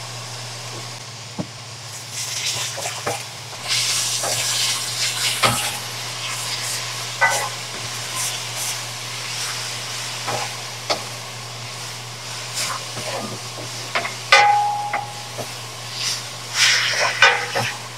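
Watercress and garlic stir-frying in a wok: a metal spatula stirring, scraping and now and then clinking against the pan over a sizzle.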